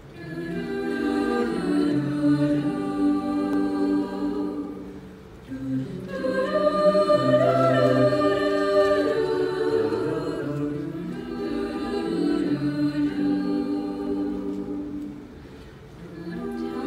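Mixed-voice a cappella choir singing held chords in several parts. The sound swells and eases, dropping off briefly about a third of the way in and again near the end.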